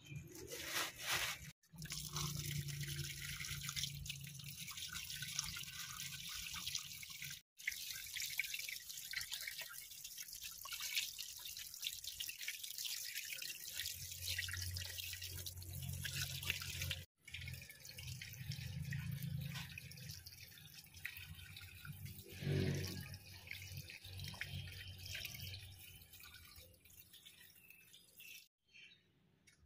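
Water running and dripping, as from a tap into a sink or basin. It breaks off abruptly three times.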